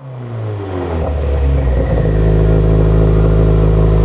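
An engine sound effect for an animated logo: the engine comes in suddenly at high revs, its pitch falls within the first second, then it settles into a loud, deep, steady rumble.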